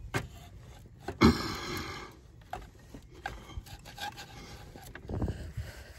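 Knocks and scraping of a Freelander 2 2.2 TD4 starter motor being worked out past the pipes of the engine bay, catching as it goes. One sharp knock about a second in is the loudest sound, with a short scrape after it and more knocks near the end.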